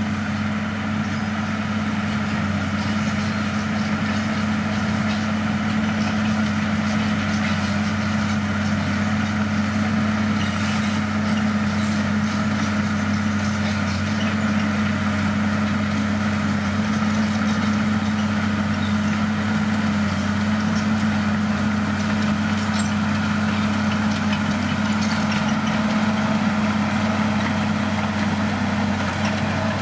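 Bulldozer's heavy diesel engine running steadily at a constant pitch, with a few faint clicks and clatters over it.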